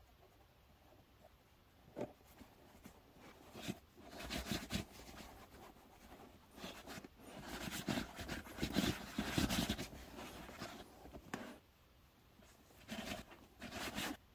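Fingers rubbing wax-based leather balm into the leather of a cowboy boot in irregular strokes, conditioning the dry leather. The rubbing starts about four seconds in, stops briefly near the end, then picks up again.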